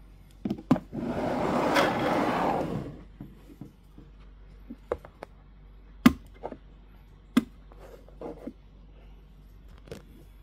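Handling noises from a figure and toy playset being moved about: a scraping rush lasting about two seconds near the start, then scattered light knocks and clicks, the sharpest about six seconds in.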